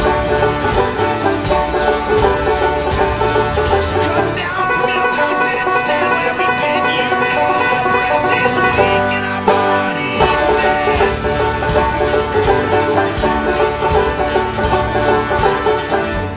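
Five-string resonator banjo strummed in a fast, driving riff, stopping near the end.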